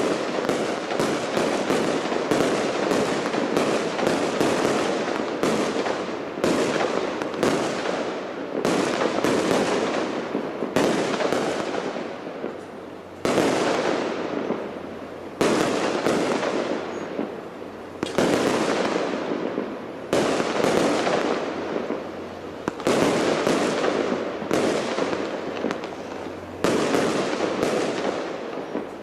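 Large fireworks display: shell bursts going off one after another, each sharp bang fading in a long echoing tail. They come in a dense, overlapping run at first, then as bigger single bangs about every two seconds.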